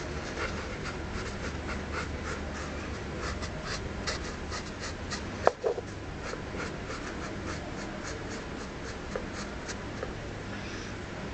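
A pen scratching over the mask's surface in quick short drawing strokes, several a second, over a low steady hum. One sharp click comes about five and a half seconds in.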